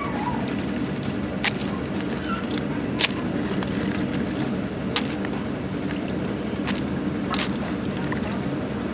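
A steady low motor drone, with scattered sharp clicks and knocks.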